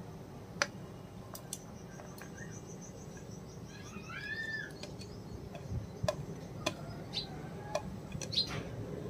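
Light clicks and taps as chopped vegetables are tipped off a plate and pushed by hand into a metal pot of rice and water. A bird chirps a short call about four seconds in.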